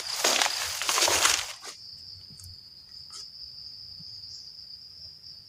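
Forest insects keep up a steady, high-pitched drone on one note. For the first second and a half it is covered by loud, rough rustling, which then stops.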